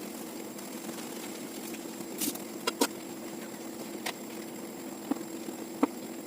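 Light clicks and knocks, about five of them, over a steady hum, with a short hiss about two seconds in: household items being handled during kitchen cleaning.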